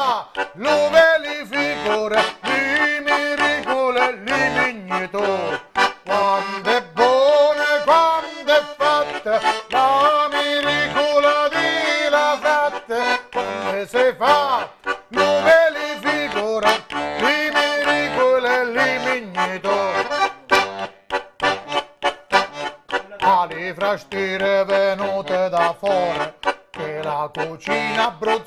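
Diatonic button accordion (organetto) playing a lively folk tune with a steady bass beat, with a man singing over it.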